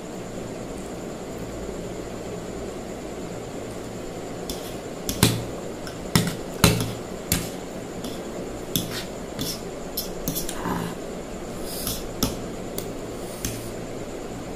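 Metal fork and spoon clinking and scraping against a plastic plate while eating ramen noodles. It comes as a string of sharp clinks starting about five seconds in, the loudest in the first few, then lighter taps spread over the rest.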